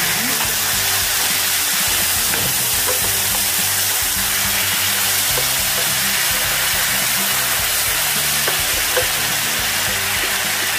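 Soy-based marinade sizzling in a frying pan of sautéed onions and oil as it is stirred with a wooden spoon, under background music with steady held notes.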